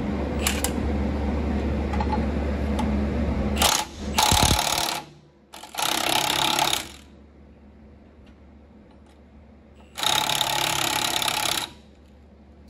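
Cordless impact wrench hammering on the pinion nut of a rear axle in three main bursts, with a short blip just before the first. A steady low hum underneath cuts off about five seconds in.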